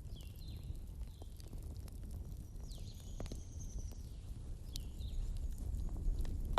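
Bonfire burning wood, with a steady low rumble of flame and irregular sharp crackles and pops. A few short high whistling notes come through, the longest about halfway through.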